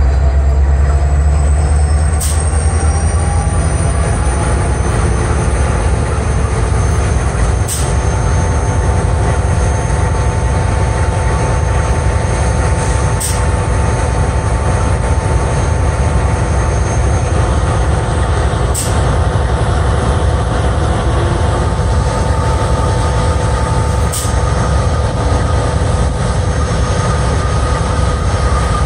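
Norfolk Southern GE diesel locomotives at the head of a freight train running at low speed, with a heavy engine rumble and several steady whines, one high whine rising over the first few seconds. A sharp click comes about every five and a half seconds as the train creeps along.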